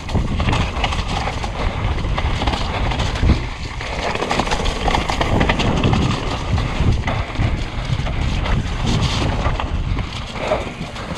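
Wind buffeting a bike-mounted camera microphone as a mountain bike rolls fast down a wet dirt trail, with a rough, uneven rush of tyre noise and frequent small knocks from the bike over bumps.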